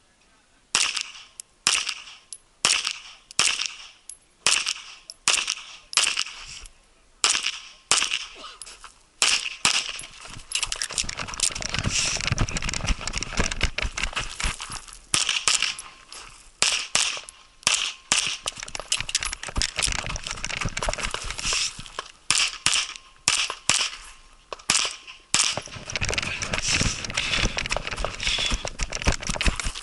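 Competition pistol shots fired in quick strings, about two a second, with a low rumble under later stretches of shots.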